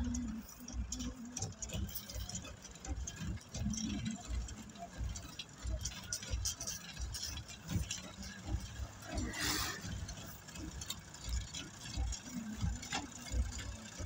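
Road-surfacing work noise: an uneven low rumble with scattered clicks and scrapes from gravel and tools, one louder scrape about two-thirds of the way through, and faint voices.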